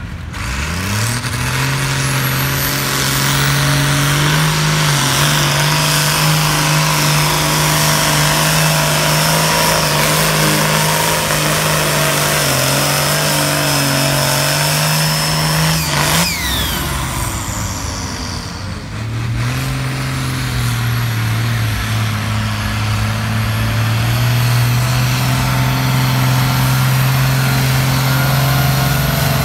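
Vintage diesel tractor engine pulling hard under load against a weight-transfer sled. It climbs to full revs about a second in and holds there, drops away briefly a little past the middle, then runs steadily at full revs again.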